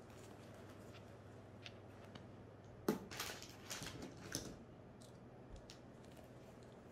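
Disposable diaper rustling and crinkling as hands fit and fasten it, in a short cluster of soft crackles in the middle, with faint room tone around it.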